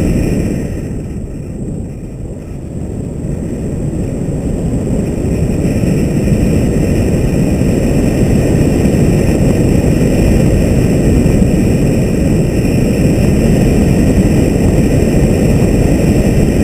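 Wind buffeting the microphone of a camera mounted on the front of a moving car, together with the car's road noise. It eases off briefly about a second in, then rises again and holds steady.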